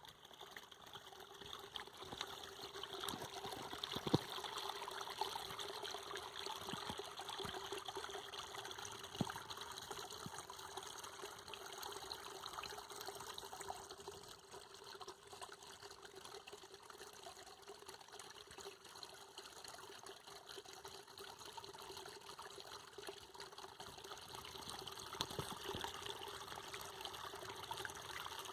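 Water trickling steadily, with a faint steady hum and a few light clicks.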